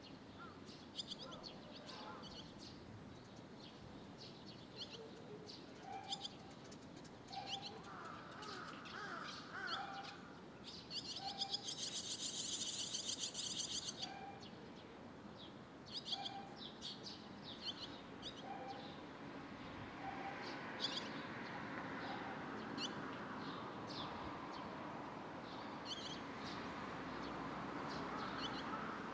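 Barn swallow fledglings chirping in short, high calls while waiting to be fed. About eleven seconds in comes a dense, rapid burst of begging chirps lasting about three seconds.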